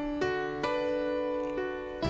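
Piano playing slow, sustained chords in a ballad's backing music, with three new chords struck across the two seconds and no voice.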